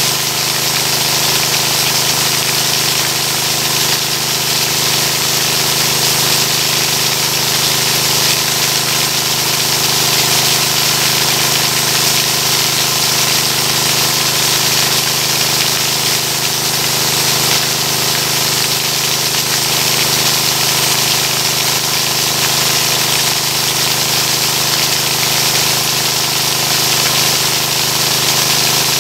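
Small engine-driven water pump running steadily at a constant speed, with the rush of its discharge jet gushing out of the hose and splashing onto the grass.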